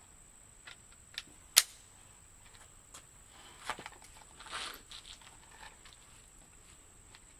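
A few sharp clicks and a brief rustle of handling, the loudest click about a second and a half in, over a steady high-pitched chirring of crickets.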